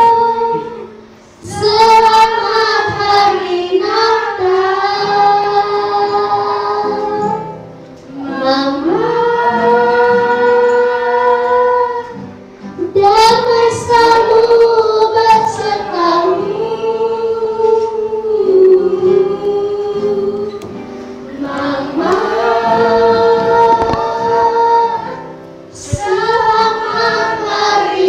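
Children and women singing together in long, held notes, phrase by phrase, with brief breaks between phrases.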